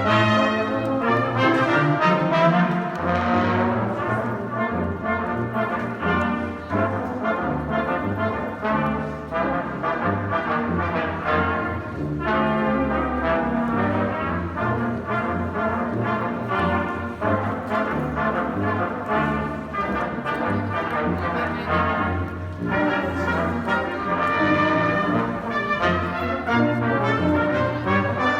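A middle school concert band playing a piece of music, with the brass (trumpets and trombones) to the fore.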